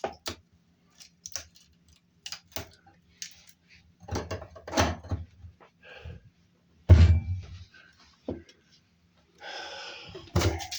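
Scattered knocks, clicks and clatter of tools and parts being handled during plumbing clean-up, with one heavy thump about seven seconds in and a brief hiss near the end.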